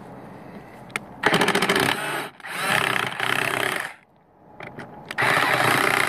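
Cordless power driver backing out Phillips-head screws from a tractor's plastic panel. It runs in three spurts: about a second in, again at two and a half seconds, and again from about five seconds.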